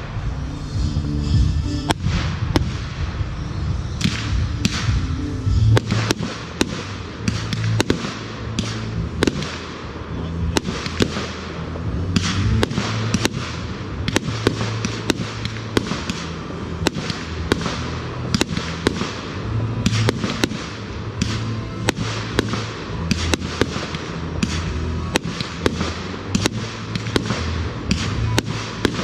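Fireworks display: a rapid, continuous run of sharp bangs, several a second, from bursting shells and candles. Music plays underneath.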